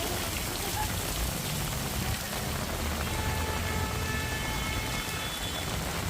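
Steady rain, a dense even hiss, over a low rumble. A faint held tone sounds for about two seconds in the middle.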